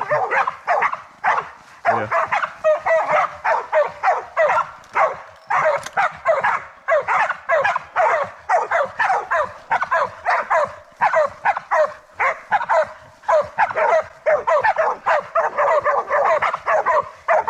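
Pig dogs barking continuously and rapidly, about three to four barks a second, as they bail a feral pig, holding it at bay.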